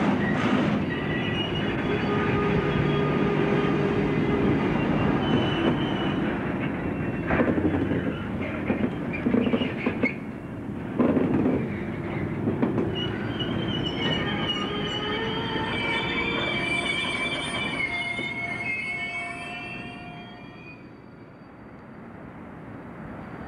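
Class 08 diesel shunter moving slowly with loaded ICI limestone hopper wagons, its engine running under the steady rumble of the wagons. A run of sharp knocks comes about a third of the way in, then high-pitched wheel squeal rings out through the second half before the sound drops away near the end.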